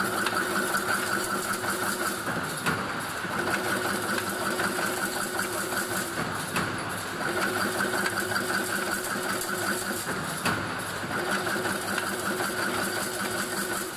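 Automatic double-wire chain link fence weaving machine running. A steady mechanical hum repeats in a cycle of about four seconds, with a sharp knock at the start of each cycle, three times.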